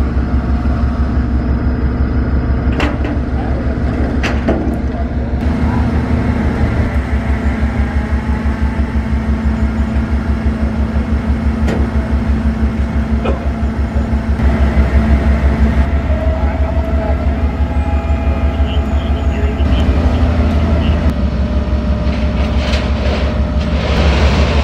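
Flatbed tow truck's diesel engine running steadily, with an even low pulsing, as its winch pulls a car up the tilted bed; a few sharp metallic clanks about three and four seconds in and again near the middle.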